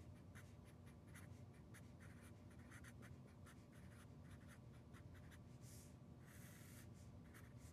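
Sharpie felt-tip marker writing numbers: faint, quick pen strokes, with a longer drawn stroke about six seconds in.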